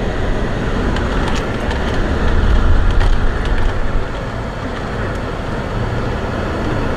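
Car engine and road rumble heard from inside the cabin as the car pulls in at low speed, swelling in the low end about two to three seconds in.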